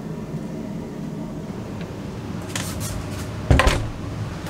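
A wooden yacht cabin door being pulled shut: a few light handle and latch clicks, then a single solid thud about three and a half seconds in, over a steady low hum.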